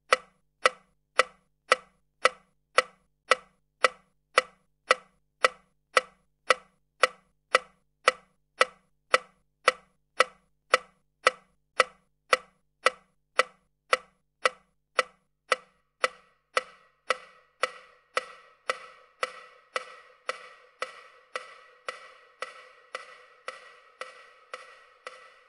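Wind-up clockwork mechanism ticking steadily, a sharp tick about twice a second as its metal striker swings back and forth. About two-thirds of the way in, the ticks grow fainter and a ringing tone carries on between them.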